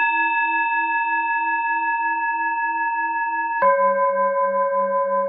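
Tibetan singing bowl ringing steadily at a high pitch with a slow, even wavering: the breathe-in cue. About three and a half seconds in, it switches abruptly to a lower, also wavering bowl tone, the cue to breathe out.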